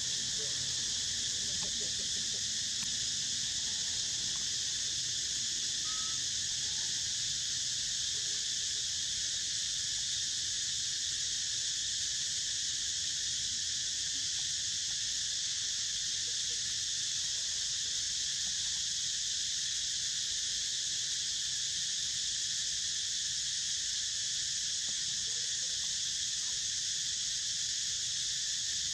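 Steady, high-pitched chorus of forest insects.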